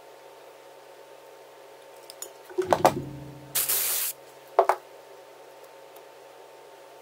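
Aerosol spray can giving one short hiss of about half a second, aimed at a freshly soldered wire splice, about halfway through. Just before it there are a few knocks and clicks, and a second after it two more clicks.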